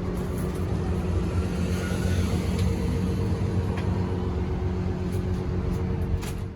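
Steady drone of a motor vehicle's engine running, with a constant low hum and a few steady tones.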